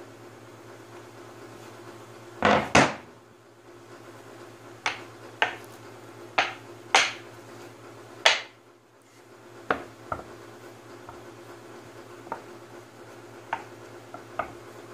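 Plywood panels knocking and clacking against each other and the stack as they are handled and set down, a dozen irregular wooden knocks, loudest in the first half and fainter towards the end.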